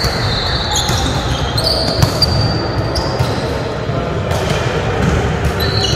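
Volleyball play in a large, echoing sports hall: athletic shoes squeaking on the wooden court several times, with the thuds of the ball being struck and bouncing, over a steady murmur of players' voices.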